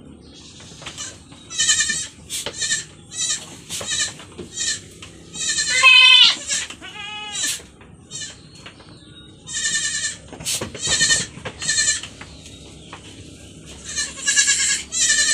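Goats bleating repeatedly in short, high-pitched calls, with one longer call about six seconds in that falls in pitch.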